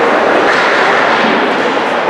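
Steady, loud, echoing din of an ice hockey game in play in an indoor rink: skates on the ice and crowd noise blended together, with no single sound standing out.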